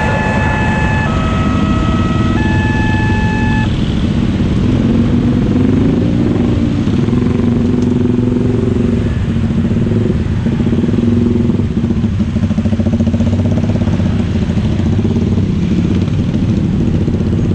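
A railway level crossing's electronic warning tones step through a few pitches and stop about four seconds in. Motorcycle and other traffic engines run throughout, rising and falling as vehicles move across.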